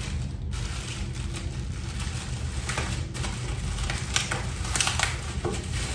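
Scattered light clicks and rustles of stool parts and packaging being handled, over a steady low hum.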